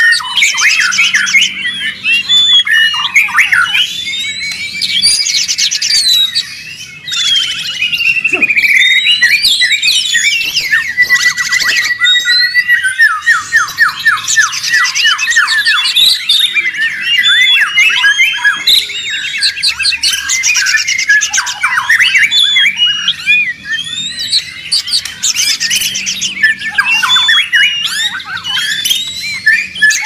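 White-rumped shama (murai batu) in loud, continuous full song: a fast, varied stream of whistles, sweeping notes and harsh chattering, with a long run of quick repeated notes about halfway through. It is a very noisy, worked-up bird pouring out its repertoire of learned and mimicked phrases.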